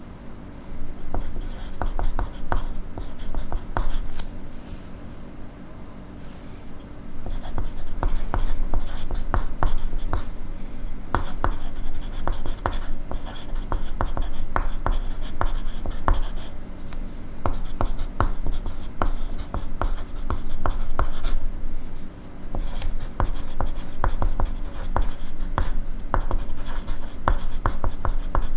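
Pencil writing on paper: runs of quick scratchy strokes, with a quieter pause about five seconds in.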